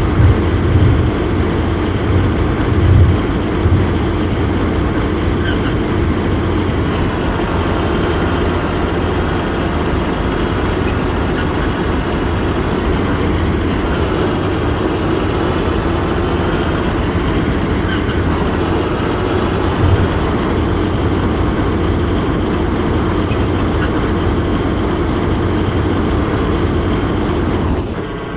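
Excavator running steadily under load, with a whine that glides up and down in pitch and a few heavier knocks in the first few seconds.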